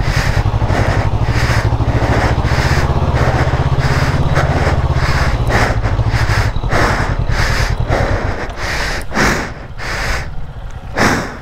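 Motorcycle engine held at high revs, straining through mud on a steep backtrail. It falls away about eight seconds in, and a few sharp knocks follow near the end.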